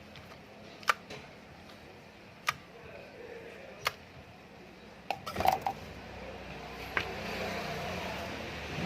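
Sharp single clicks of small hard parts being handled, a few seconds apart, with a quick cluster of clicks and clinks about five seconds in. After that a steady rushing noise builds up near the end.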